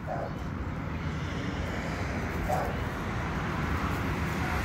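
Steady low background rumble, with two faint short squeaks, one near the start and one about two and a half seconds in.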